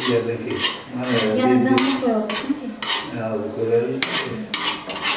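Metal slotted skimmer clanking and scraping against the sides of an aluminium pot as plov rice is stirred and turned over, in a string of irregular strokes.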